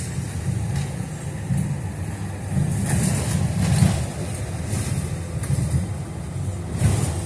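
Low, steady rumble of a city bus in motion, heard from inside, with a few brief rattles and knocks about three to four seconds in.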